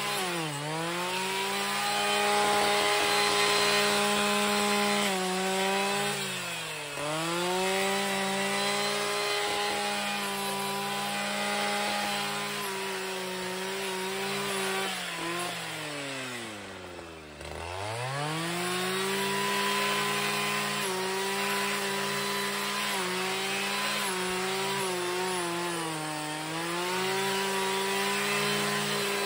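Husqvarna 545RX two-stroke brushcutter running at high revs as its blade cuts through thick giant hogweed stalks. The engine bogs down under load and revs back up several times, with its deepest drop in pitch about two-thirds of the way through.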